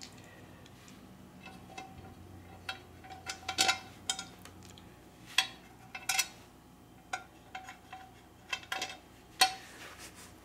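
Irregular small metallic clicks and clinks as screws and washers are handled and fitted to a steel plate, a few of the taps ringing briefly.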